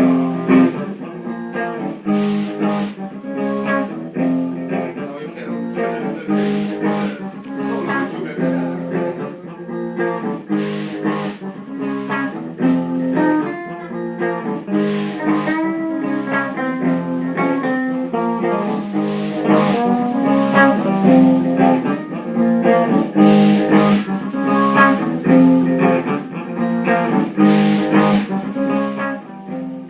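Guitar being played continuously, a run of plucked notes and chords over a steady low line.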